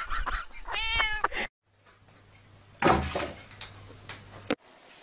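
A cat meows once about a second in, a drawn-out call that wavers in pitch. Later comes a short thump and a sharp click.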